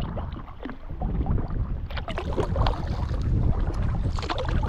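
Water splashing and dripping around an inflatable kayak being paddled, with wind rumbling on the microphone. The splashing gets busier and louder about two seconds in.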